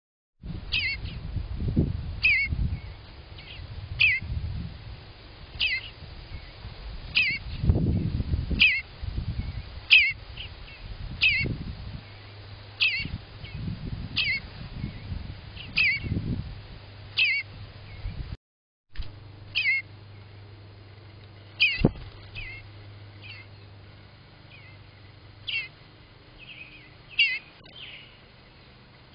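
Eastern bluebird giving short, high calls over and over, about one every one and a half seconds, with a low rumbling noise under the calls in the first half.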